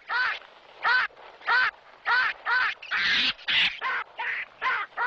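A baboon giving a rapid series of short shrieking calls, about two a second, each rising and then falling in pitch. It is in distress, its fist full of seeds and trapped in a hole in an anthill.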